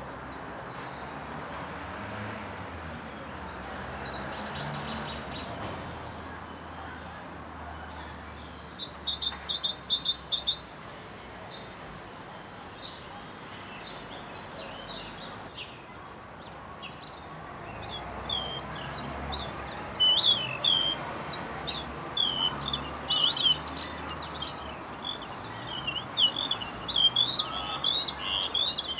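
Birds chirping over a steady background hiss, with a high thin whistle and a quick run of notes about a third of the way in. The chirping grows busier in the last third.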